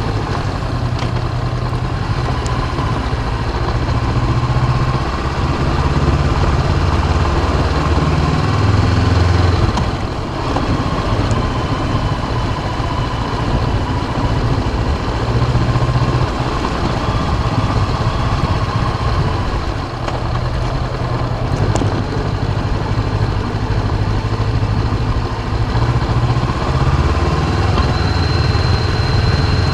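Honda CB500X's 471 cc parallel-twin engine running on the move, its note rising and falling with the throttle every few seconds, with thin high-pitched tones drifting in and out above it.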